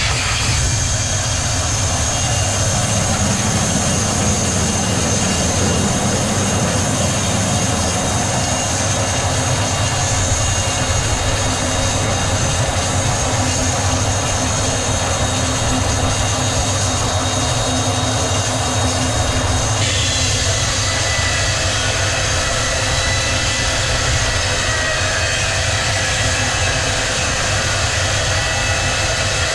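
Sawmill machinery running steadily, a loud dense mechanical noise with several steady whining tones; the high tones shift abruptly about two-thirds of the way through.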